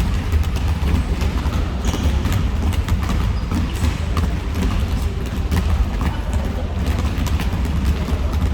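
Irregular knocks of basketballs bouncing and feet on a gym floor during play, over a steady low rumble.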